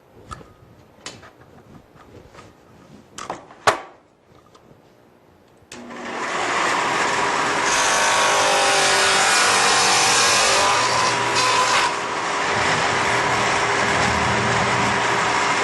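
A few sharp clicks and knocks, then a Shopsmith table saw with a dado blade switched on about six seconds in. It comes up to speed over a second or two and runs steadily and loudly for grooving a board.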